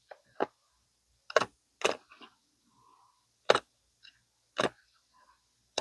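Stitches in a denim seam being cut and snapping: a series of short, sharp snaps at uneven intervals, roughly one a second.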